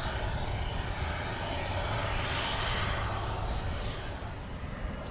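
Steady jet engine rumble of a three-engined McDonnell Douglas MD-11 freighter rolling out on the runway just after touchdown, easing off slightly near the end.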